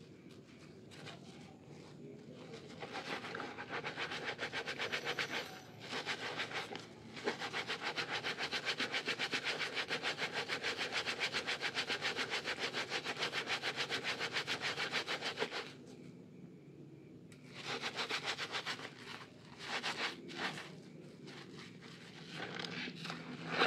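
Hands lathering a soaked, softened bar of Lervia milk soap and a foam sponge in a basin of suds: wet, frothy rubbing and squeezing in quick, even strokes. The strokes run long through the middle, pause briefly, and come back in shorter bursts near the end.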